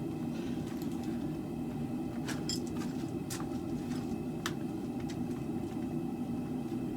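Propane forge burner running with a steady roar, with a few light metallic clicks about two to four seconds in.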